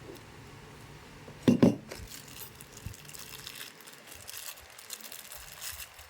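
Objects being handled: a loud thump about a second and a half in, followed by light clicks and rustling, with no hair dryer running.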